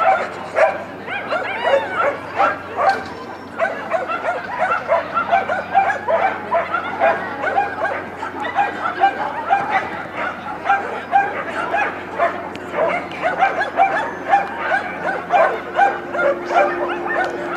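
Small dog yapping over and over in short high-pitched barks, about three a second, with hardly a pause.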